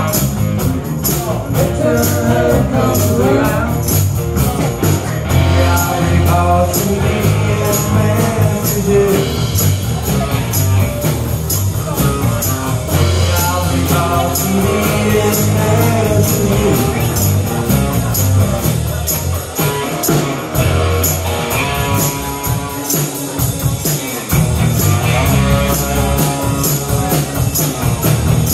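Live rock band playing through a PA: electric guitar, electric bass and tambourine over a steady beat.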